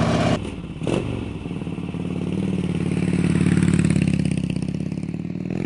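Motorcycle engine running with an even, rapid pulse, growing louder about three to four seconds in and then easing off. A single knock sounds about a second in.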